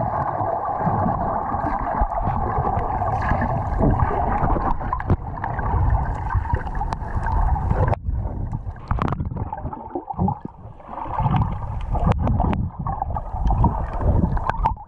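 Underwater sound through an action camera's waterproof housing: a muffled steady hum and low rumbling, with bubbling and scattered clicks from snorkellers' exhaled bubbles and strokes. The hum fades about eight seconds in.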